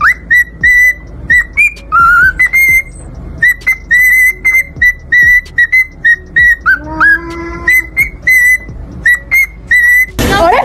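Cockatiel whistling a rapid string of short, high whistles, mostly on the same note, some sliding up into it, with a lower, longer call about seven seconds in. Near the end it cuts abruptly to women's voices.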